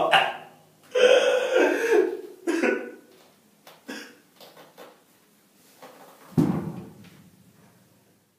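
A man coughing and clearing his throat in a small room, in several separate bouts: a longer one about a second in, shorter ones after it, and one more about six seconds in.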